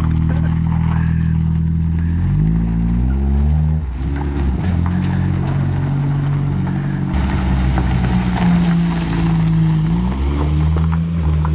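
Mitsubishi Cordia's four-cylinder engine running through a straight-through exhaust as the car is driven, on its first run after years of sitting. It holds a steady note, with the revs rising about two seconds in and again near the end.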